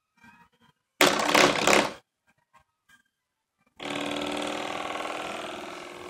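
Spring door stop flicked and twanging: a loud rattling twang about a second in that is cut off after about a second, then near four seconds another twang that rings on as a steady wavering buzz, slowly fading.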